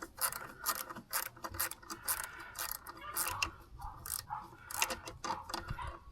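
Cut-down 13 mm ratcheting wrench clicking in quick repeated strokes, about three clicks a second, as it backs a nut off a stud. The clicks thin out near the end.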